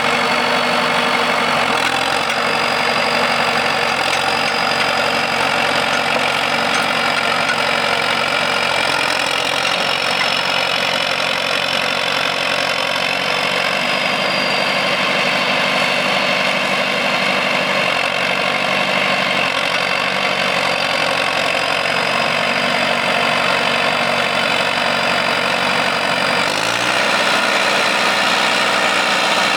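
John Deere 450C crawler loader's diesel engine running steadily at idle, its speed picking up a little near the end.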